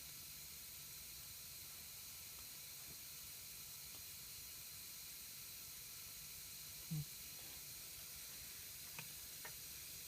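Compressed air hissing steadily and faintly from a leaky compressor unloader valve while the converted air compressor charges its tank, over a faint low hum. A brief low sound stands out about seven seconds in, and two small ticks come near the end.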